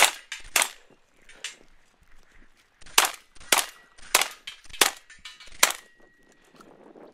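Gunshots fired in quick succession at steel targets: two near the start, then five in a row from about three seconds in, roughly two-thirds of a second apart. A faint ringing tone lingers briefly after the last shot.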